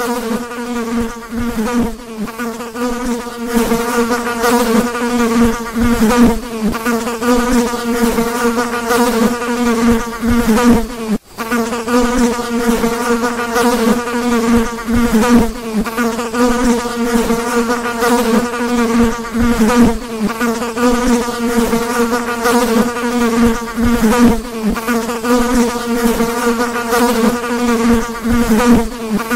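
A fly buzzing in flight: a continuous, steady wing drone that wavers slightly in pitch, breaking off for an instant about eleven seconds in.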